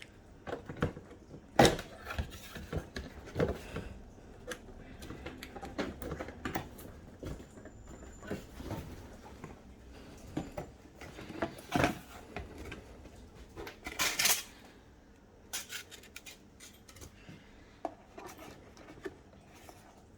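Hands handling the parts and packaging of a Fluval 407 canister filter: irregular clicks, knocks and clatter, with a short noisier stretch about fourteen seconds in.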